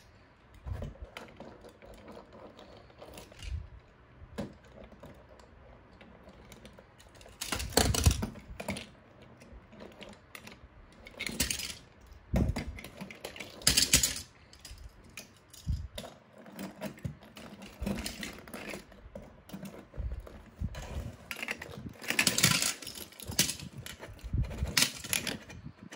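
Diecast toy cars clicking and clattering against one another and the wooden tabletop as they slide into a flap-covered hole and drop through it. The clicks come in irregular bursts, with louder clatters about 8, 14 and 22 seconds in.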